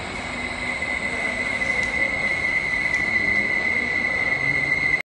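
Steady machinery noise: a high, constant whine over a hiss, growing louder over the first two seconds, then cut off abruptly just before the end.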